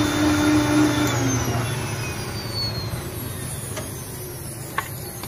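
Sujata mixer-grinder motor running at speed blending fruit juice, switched off about a second in and spinning down with a falling whine. A single sharp click comes near the end.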